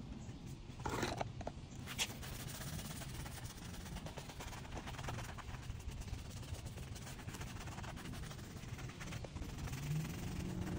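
Soft-bristled detailing brush scrubbing soap suds over plastic taillight lenses, a light scrubbing noise over a steady low hum.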